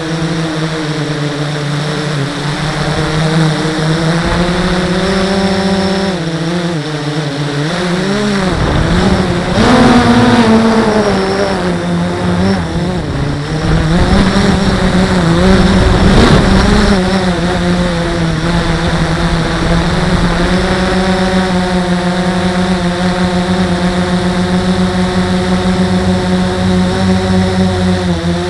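Blade 350 QX quadcopter's four brushless motors and propellers running, a pitched hum that rises and falls as the throttle changes. It is loudest around the middle, with a rush of air, and holds steady near the end.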